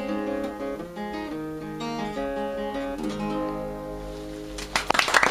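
Guitar playing the closing chords of a song, the notes left ringing. Audience applause breaks out near the end.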